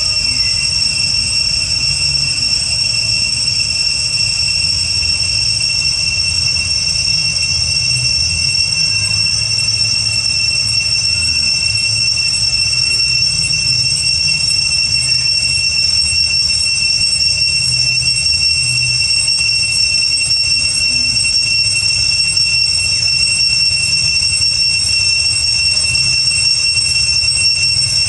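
Cicadas droning steadily at a high, shrill pitch, unbroken and loud, over a low rumble.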